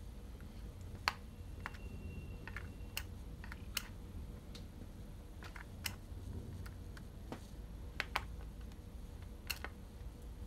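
Scattered light clicks and taps of a small Phillips screwdriver turning keyboard screws out of a ThinkPad X201's plastic underside, with the loose screws being handled, over a low steady background hum.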